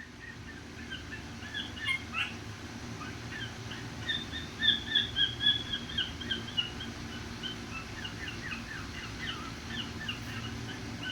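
An animal chirping over and over: quick, short high chirps in long runs, loudest and thickest about halfway through. A faint steady low hum sits underneath.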